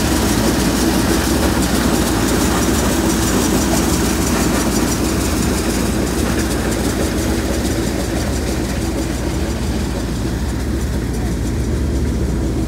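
Tractor-driven maize thresher running steadily, the Massey Ferguson tractor's engine droning under the steady noise of the threshing drum as it shells cobs.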